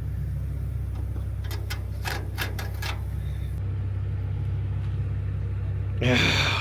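A 1929 Ford Model A's four-cylinder engine running steadily with a low rumble. A few sharp clicks and clanks come between about a second and a half and three seconds in.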